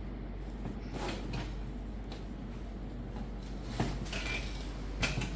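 A chiropractic treatment table creaking and knocking as the patient shifts and is positioned on it, with a few sharp knocks about a second in, near four seconds and near five seconds. A steady low electrical hum sits underneath.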